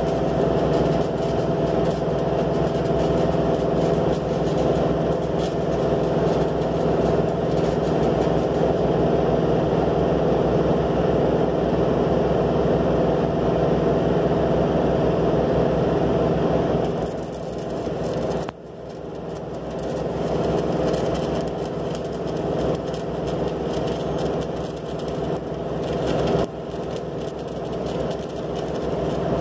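Stick welding with an E6013 electrode on steel plate: the steady hiss and crackle of the arc over a constant machine hum. The sound eases and loses its brightness about 17 seconds in, with a short dip just after.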